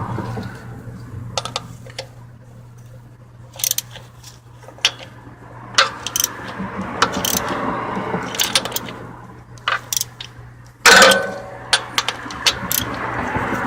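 Metal hand tools clicking and clinking at scattered moments, with one louder ringing metallic clank about eleven seconds in, over a steady low hum.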